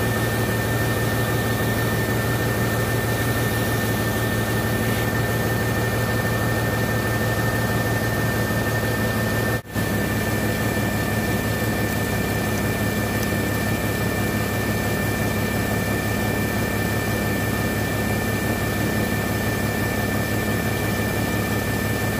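A 1997 Ford F-150's engine running with its newly reinstalled electric radiator fans blowing, giving a steady rush of air over a low hum. The sound drops out for a moment about ten seconds in, then carries on.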